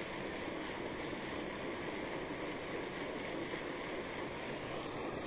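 Steady rushing hiss of moving water, even throughout with no distinct splashes or knocks.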